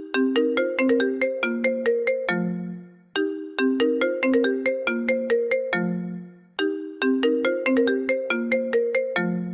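iPhone ringtone playing: a short melody of quick, bell-like plucked notes that loops about every three and a half seconds, starting over twice.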